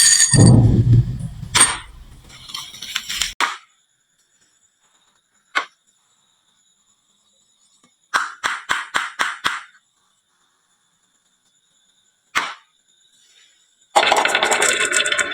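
Marbles rolling, clicking and rattling on a wooden marble run and into toy trucks: a low rolling rumble at the start, single sharp clicks, a run of about seven quick clicks, then a dense burst of rattling near the end, with silent gaps between.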